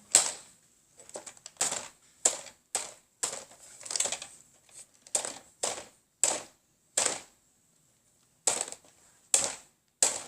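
A string of hard plastic clicks and clacks, about a dozen at an uneven pace with a short pause near the end, from Nerf blaster accessories being handled and fitted together.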